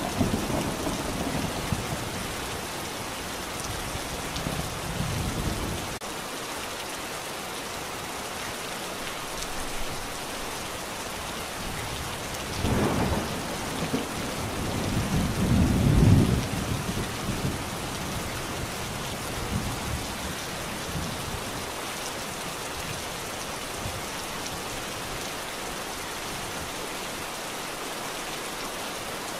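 Steady rain with rolling thunder: a deep rumble in the first few seconds, another short one partway through, and the loudest roll just past the middle.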